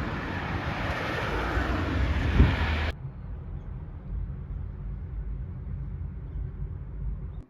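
Train noise: a loud rushing rumble that cuts off suddenly about three seconds in, then a quieter low steady hum.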